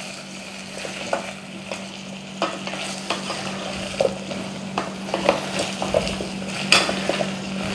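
Cubed potato, carrot and onion sizzling in butter in a stainless steel pot while a wooden spatula stirs them, with scattered knocks as the spatula and vegetable chunks hit the pot.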